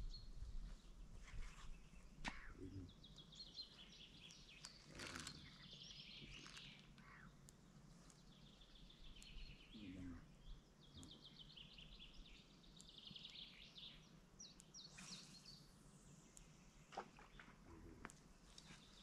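Faint songbird calls and trills over quiet lakeside ambience, with a few light clicks.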